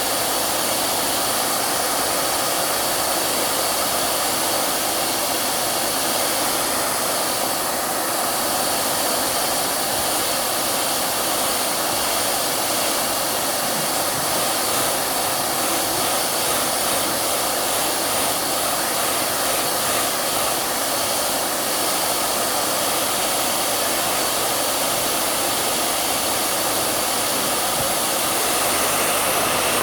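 Hair dryer running steadily: a constant, even rushing hiss with no change in level.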